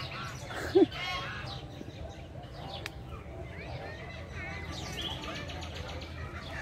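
Many small birds chirping, short high chirps overlapping in the bird garden's aviaries. About a second in, one short, louder, lower call stands out.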